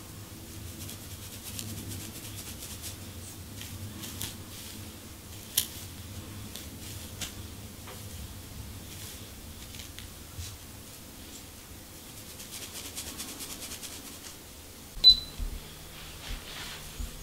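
Fingernails and a fine-tooth plastic comb scratching and scraping a dry, flaky scalp through short, tightly coiled hair: a run of quick, dry crackling scratches and ticks, with one louder clack near the end.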